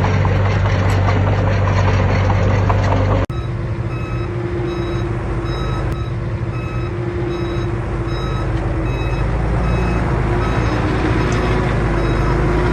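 Heavy diesel construction machinery running, with clanking in the first few seconds. After an abrupt cut, a back-up alarm beeps about once a second over the engine's rumble, the sign of a machine reversing.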